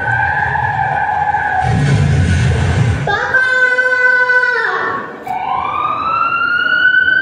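Recorded sound effects for a staged road accident: a held tone, then about two seconds in a burst of noise with a low rumble, then a steady blaring tone, and near the end a siren wail rising in pitch.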